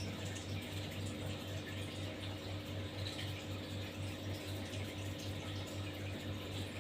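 Steady low hum with an even pulse about four or five times a second, over a faint hiss.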